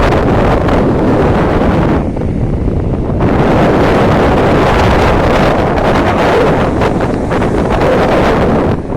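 Loud wind buffeting the phone's microphone: a steady rushing noise, with a brief lull about two seconds in.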